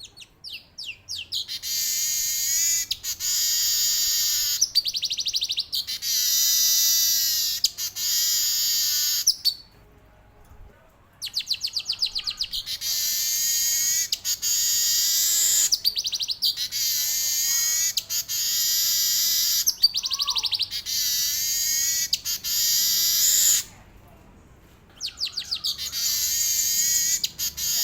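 Male manyar (weaver bird) singing in long, rapid, high-pitched chattering trills with warbled fill-in phrases, in three long bouts broken by two short pauses, about ten seconds in and near the end.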